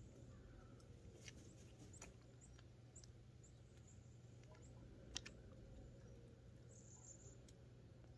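Near silence, with faint scattered clicks and a few brief high chirps; one sharper click about five seconds in.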